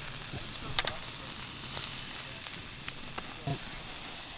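Campfire crackling with a steady hiss, two sharp pops about a second and two seconds apart, and a sausage sizzling over the flames.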